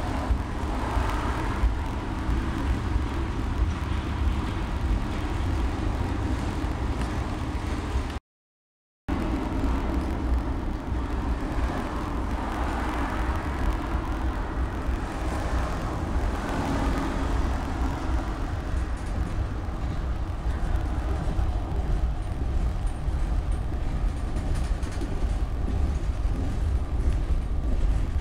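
Freight train rolling past: a steady low rumble with the rattle of the cars on the rails. A car drives by close at the start, and the sound drops out for about a second some eight seconds in.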